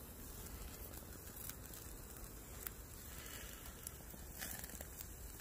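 Small wood fire burning in a folding steel stove, faint, with a few scattered crackling pops.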